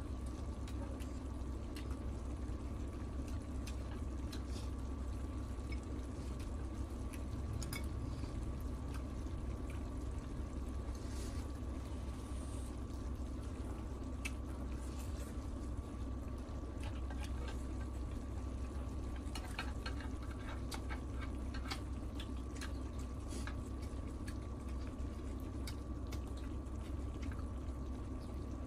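Sauce with beef and octopus simmering in a tabletop grill pan, bubbling steadily, with scattered light clicks of chopsticks against the pan and soft eating sounds. A steady low hum runs underneath.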